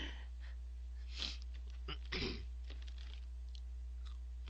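A person's breath noises: a short hissy sniff about a second in, then a louder breathy huff about two seconds in. A steady low hum runs underneath.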